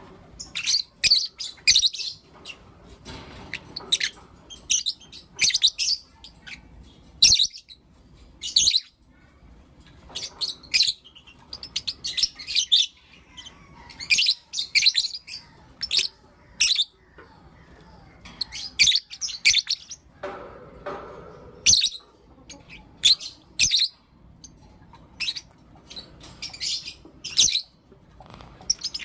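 Lovebirds chirping in quick, high-pitched bursts, grouped in short runs with brief pauses between them.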